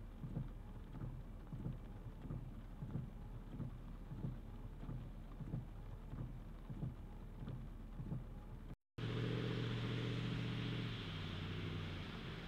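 Inside a car in the rain: windshield wipers sweeping with a soft thump about twice a second over a steady low engine hum. After a cut near the end, a louder steady engine drone with several held tones takes over and shifts once.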